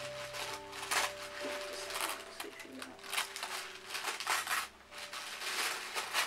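Wrapping paper crinkling and rustling in repeated bursts as it is handled and crumpled by hand, with faint held tones underneath.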